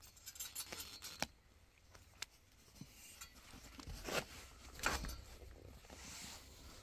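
Handling sounds as a canvas tent cover is tied onto a metal pipe frame: scattered light clicks and knocks, then two louder rustling scrapes of cloth and cord about four and five seconds in.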